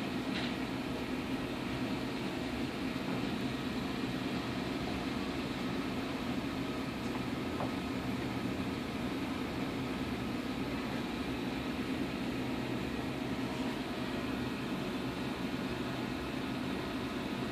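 Steady mechanical hum with an even hiss, unchanging throughout, with a couple of faint clicks.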